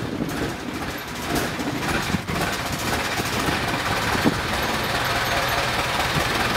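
Long-tail boat's engine running steadily while the boat is under way, heard from on board.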